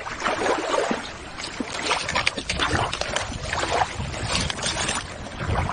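Shallow water sloshing and splashing irregularly as a hand net is swept through it.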